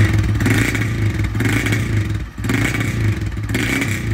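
Honda CG 160 single-cylinder motorcycle engine running loud through a Toruna aftermarket exhaust. The throttle is blipped in quick repeated surges, each about half a second apart, with a brief drop a little past two seconds in. This is the exhaust's sound before a steel bar is pushed into the tailpipe.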